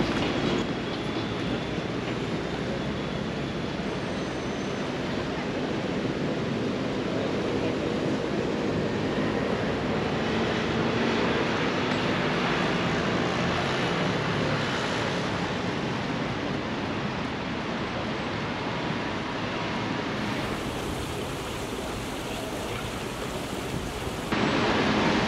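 Steady open-air city ambience: an even wash of distant traffic and street noise, with faint voices of passers-by. The sound changes abruptly a couple of times and steps up in loudness shortly before the end.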